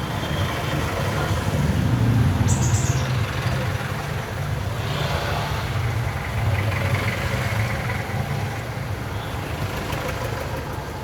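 Road noise from riding in a small electric vehicle through traffic: a steady low rumble of tyres and wind. A brief high chirp sounds about two seconds in.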